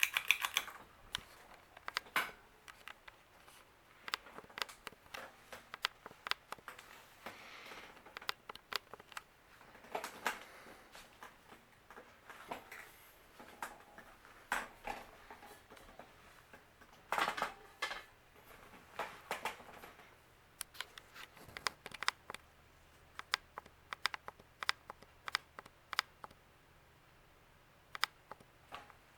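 S.M.C. UB42 ceiling fan running on its low speed, making a string of light, irregular clicks and ticks over a faint low hum.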